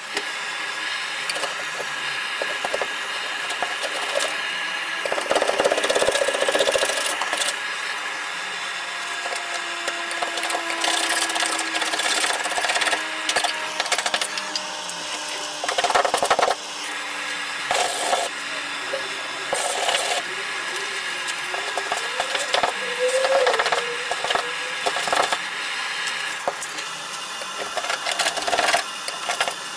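Gas blowtorch hissing steadily while a metal paint scraper scrapes heat-softened underseal off a car's steel underbody in short, irregular strokes.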